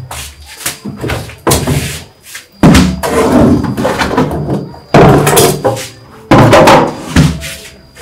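Plastic washbasins and a bucket being knocked about and set down on a tiled floor: several loud clattering thuds, three of them much louder than the rest, each trailing off over about a second.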